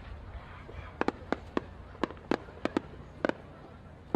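Fireworks shells bursting: a quick, irregular string of about nine sharp bangs, starting about a second in.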